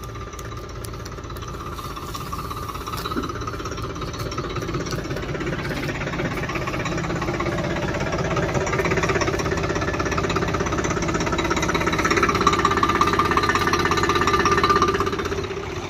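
Tractor diesel engine running steadily under load, driving a straw thresher. It grows louder over the first twelve seconds or so, then falls off just before the end.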